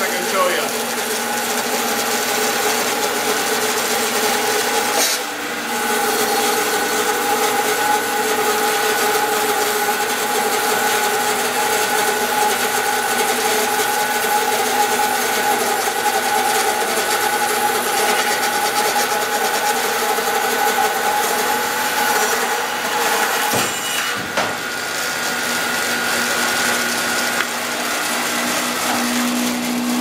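Band saw resawing a cedar log on a Little Ripper sawmill sled: the blade cutting steadily through the wood with a rasping hiss over the saw's running whine. It eases briefly twice as the log is fed through.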